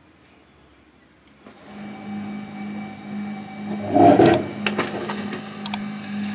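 HP LaserJet P1108 laser printer starting a print job: about a second and a half in, its motor starts running with a steady hum, and around four seconds in the noise rises briefly as the sheet is picked up and fed through. This is a test print after a new drum and PCR (charge roller) were fitted.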